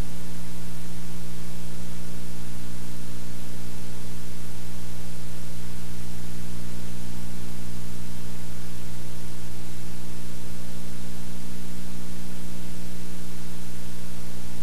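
Loud steady electrical hum with a stack of overtones over an even hiss, from a blank stretch of analogue videotape.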